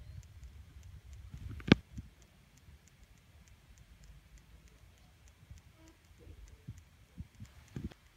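Handling noise from a hand-held phone camera being carried and panned: a low rumble, then one sharp click about two seconds in, and a few soft knocks near the end. Faint, evenly spaced high ticking runs underneath.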